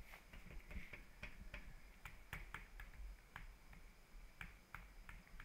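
Faint keystrokes on a computer keyboard: uneven, short clicks, about three a second, as text is typed.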